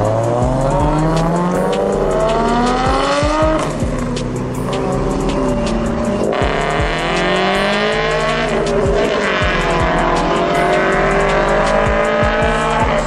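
Modified car's engine revving hard as it pulls away. The note climbs for about three seconds, falls back, then climbs again twice more, with music underneath.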